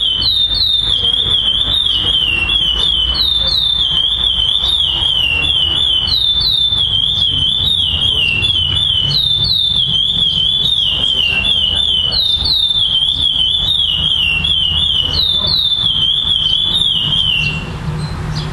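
Black male chestnut-bellied seed-finch (curió) singing its 'clássico' tournament song: fast runs of high whistled notes, each sweeping down in pitch, repeated phrase after phrase, stopping near the end. A steady low rumble lies underneath.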